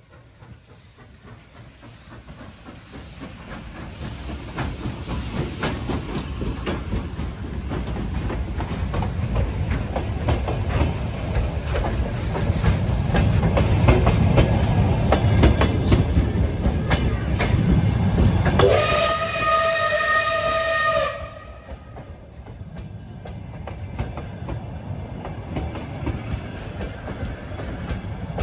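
Soviet L-class (Л) steam locomotive pulling a passenger train out of the station, the running gear and carriages clattering and growing louder as the train draws near and passes. About two-thirds through, a steam whistle blows for over two seconds, starting with a short upward slide and cutting off suddenly. The carriages then roll on more quietly with a clickety-clack.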